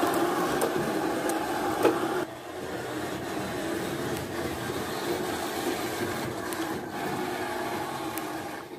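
Gauge 1 model trains running on their track: a steady whirring, rumbling run of motor and wheels, with occasional sharp clicks at the rail joints. It is loudest while the coaches pass close by, then quieter from about two seconds in.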